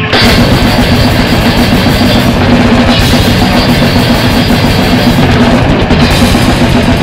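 Grindcore played on a full drum kit: a fast blast beat, with distorted electric guitar underneath. The full band comes in abruptly right at the start.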